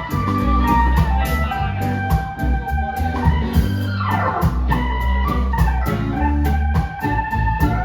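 Music led by organ-like keyboard chords over a steady bass line, with a fast, even hi-hat beat.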